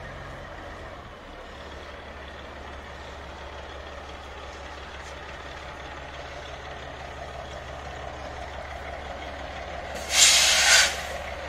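Heavy semi-truck's diesel engine running slowly while hauling a heavy load, with a loud hiss of its air brakes about ten seconds in, lasting about a second.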